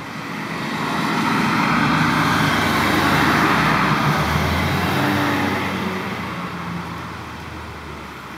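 A road vehicle passing by: tyre and engine noise swells to a peak about three seconds in, then fades away over the next few seconds.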